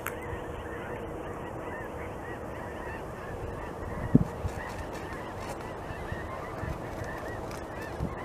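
Beaver gnawing on a tree branch with its teeth, with a sharp crunch about four seconds in, over geese honking steadily in the background.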